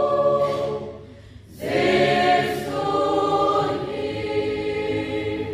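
Mixed choir of women's and men's voices singing, holding long chords. The sound fades to a short break about a second and a half in, then the next phrase comes in and is held.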